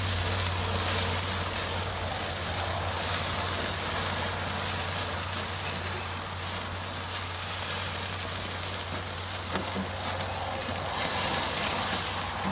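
Burgers and bacon sizzling steadily on the grate of a charcoal grill fired with charcoal and wood, over a steady low hum.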